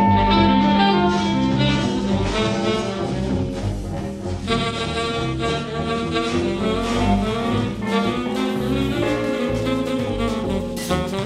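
Jazz band music, opening on a long held note before the melody moves on over a steady beat.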